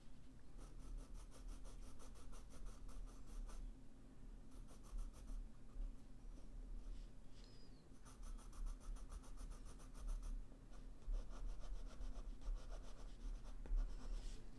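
Coloured pencil scratching on paper in quick, even back-and-forth shading strokes. The scratching comes in two longer runs, one near the start and one around the middle, with softer, slower strokes between and after.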